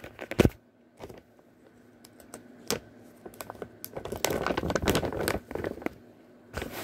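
Large plastic bag of tobacco being handled: the plastic crinkles and rustles, with scattered sharp clicks and a denser patch of crinkling about two thirds of the way in.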